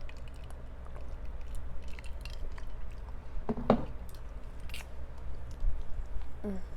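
Close-miked chewing of fried chicken, with scattered small wet and crunchy mouth clicks and one louder mouth sound about three and a half seconds in.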